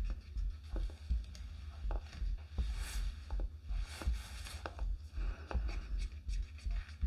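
Irregular clicks, taps and brief scrapes of a stir stick working resin in a mixing cup.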